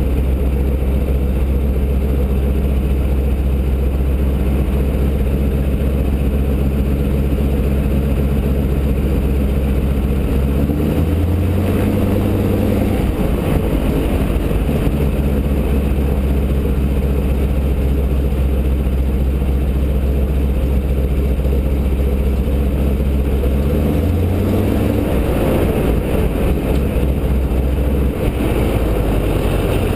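Boeing-Stearman PT-17 biplane's radial engine running at low power while taxiing, heard from the open cockpit. The engine note rises twice as the throttle is briefly opened, about a third of the way in and again a few seconds before the end, each time settling back to a steady low rumble.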